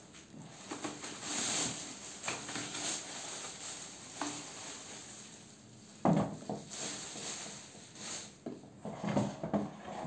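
Clear plastic wrapping crinkling and rustling as it is pulled off a plastic-bodied wet-and-dry vacuum cleaner. A sharp knock about six seconds in, the loudest sound, and more bumps near the end come from the vacuum's plastic body being handled.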